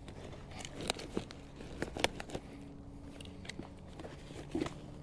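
Handling noise as a freshly caught sheepshead is stowed in a kayak fish bag: scattered sharp clicks, knocks and rustles of the fish grips, bag and hull, over a faint steady low hum.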